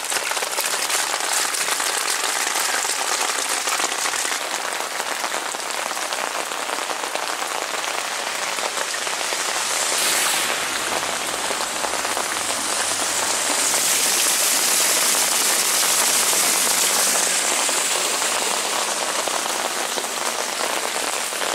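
Heavy rain falling on wet pavement and rainwater running along the gutter, a steady hiss. About ten seconds in, a foot splashes through the runoff, and the hiss grows louder for a few seconds after.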